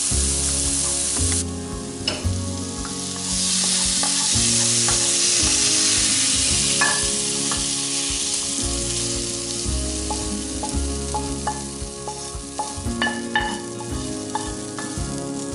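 Fennel sizzling in a hot frying pan, the hiss swelling about three seconds in and easing off later. A wooden spoon scrapes the pan, with a few sharp clinks near the end as the fennel is tipped into a ceramic dish.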